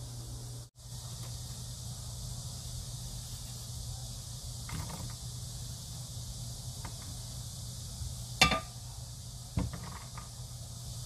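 Chopped onion and leek pieces dropped by hand into an empty stainless-steel saucepan, giving a few light knocks on the metal, the sharpest about eight and a half seconds in, over a steady low hum and hiss.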